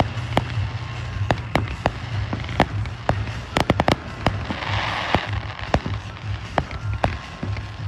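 Fireworks display: a rapid, irregular series of sharp bangs and pops, with a quick cluster of reports about three and a half seconds in and a crackling hiss about a second later.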